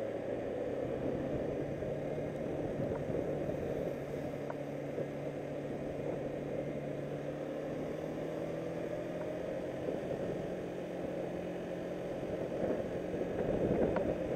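Motorcycle engine running at road speed, its pitch climbing slowly as the bike gathers speed, under a steady rush of wind and road noise that grows louder near the end.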